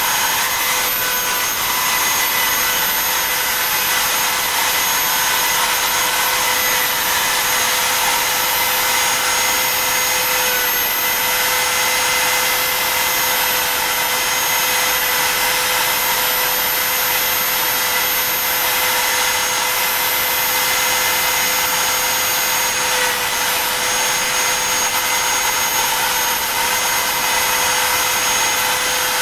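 The router spindle of a BobsCNC E3 desktop CNC runs at high speed with a steady high-pitched whine while its V-bit carves star shapes into wood. The pitch sags slightly a few times as the bit bites in.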